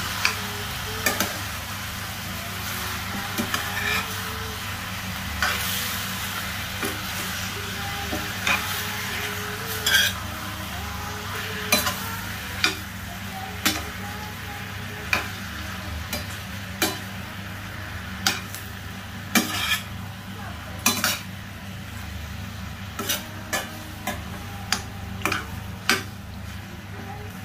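Spatula stirring raw chicken pieces in a stainless steel pan, scraping and knocking against the metal about every second or two over a light sizzle and a steady low hum.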